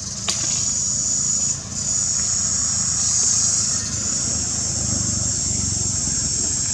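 Steady high-pitched drone of an insect chorus, dipping briefly twice, over a low rumble, with one sharp click just after the start.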